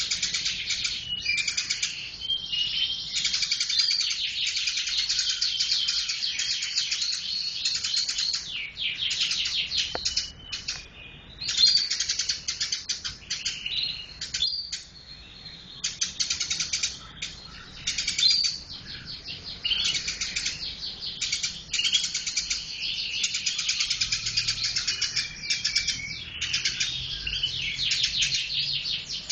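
Eurasian tree sparrow chirping rapidly and almost without break, in fast runs of chirps with a couple of brief pauses.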